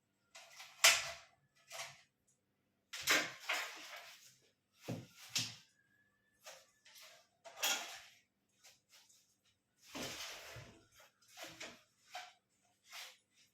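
Kitchen handling sounds: a run of irregular knocks, clatter and short scrapes as utensils and dishes are moved about, the loudest knock about a second in.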